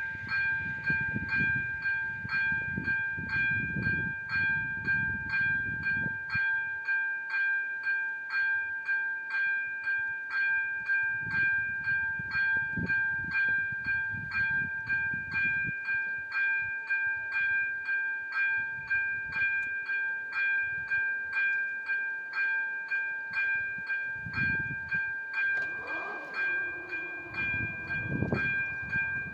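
Czech level-crossing warning bell ringing in a steady, even rhythm of about two strokes a second. A low rumble comes and goes beneath it.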